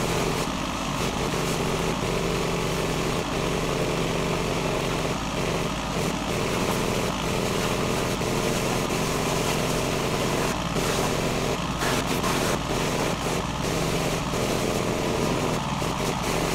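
Small engine of a gas pressure washer running steadily, with the hiss of its water spray hitting the ATV.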